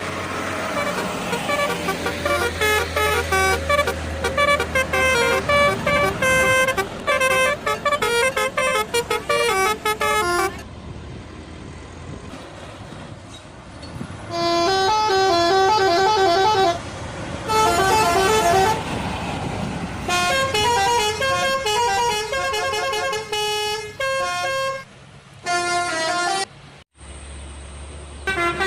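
Indonesian bus telolet horns: multi-note air horns playing fast tunes of stepping notes, in several bursts one after another. Between about ten and fourteen seconds in, the horns stop and only bus engine and traffic noise is heard.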